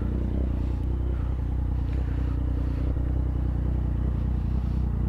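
Motorcycle engine idling steadily at a constant engine speed, with no revving.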